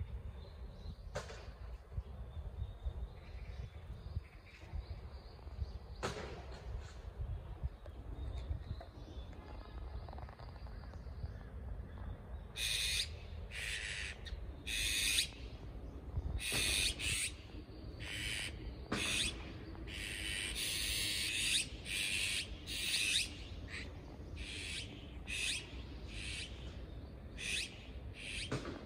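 Young azure-winged magpies calling: a run of short, rasping calls, roughly one a second, starting about halfway through, one of them drawn out longer. A low steady rumble lies underneath.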